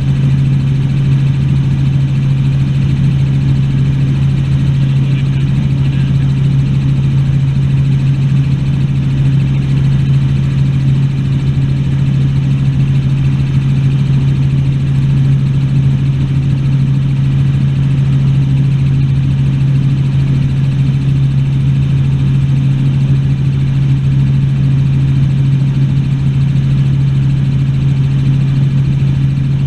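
Helicopter in flight: a loud, steady drone with one strong low hum and no change in pitch.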